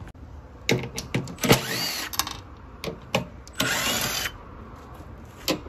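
Cordless brushless power driver spinning out the 11 mm bolts of a scooter's rear rack. It goes in short bursts, then two longer runs about a second and a half and about four seconds in, its motor pitch rising and falling.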